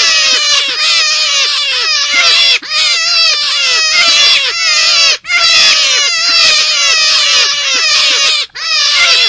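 Rapid, loud, squealing animal calls, several a second, each sliding down in pitch. The recording is presented as a forest rabbit's call for luring. The calling breaks off briefly three times and resumes at once.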